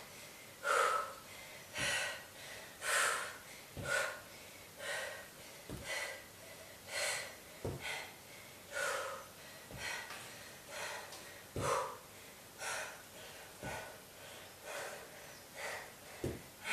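A woman's heavy breathing under exertion during a leg-lift workout, short puffs at about one a second, with a few faint low knocks between them.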